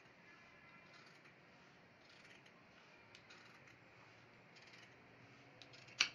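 Large tailor's scissors cutting through shiny fabric, faint snipping strokes about once a second. A sharp click near the end is the loudest sound.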